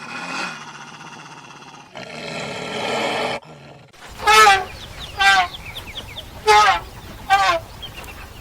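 Farm animal calls: a drawn-out pitched call, then a rougher, noisier call, then a run of four short, loud calls, each falling in pitch, about a second apart.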